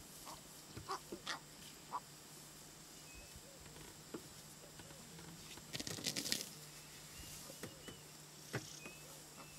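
Elephants moving in grass: short rustles and snaps of grass, with a louder rustle about six seconds in. Faint short, high bird chirps repeat through the second half.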